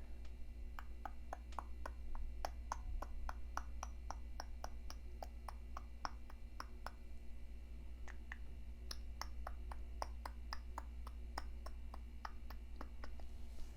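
Small grooming scissors snipping brow hairs in quick, crisp snips about three a second, pausing briefly about halfway through, over a low steady hum.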